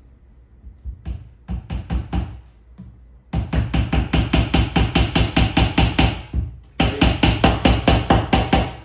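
Claw hammer tapping small nails through a flat-pack bookcase's thin fiberboard back panel into the wood frame: a few separate taps, then quick runs of gentle, even taps, about five a second, with a short pause between them.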